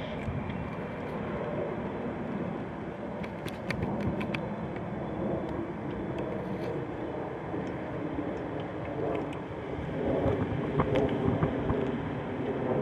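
Low, steady rumble of a CSX SD70MAC diesel locomotive's EMD two-stroke V16 engine, with wind on the microphone. A cluster of short, sharp clicks comes about three to four seconds in, and the rumble grows a little louder near the end.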